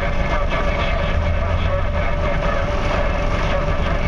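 Heavy machinery running: a steady, loud diesel engine drone with a constant whine over it.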